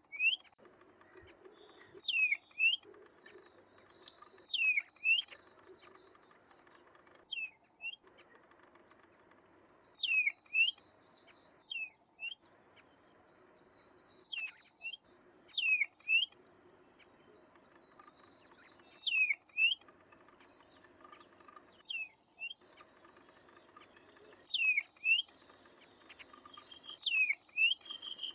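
Birds chirping and calling: a stream of short, high chirps, with a call that dips and rises again repeated every second or two. A fainter, lower warbling sound runs underneath in patches.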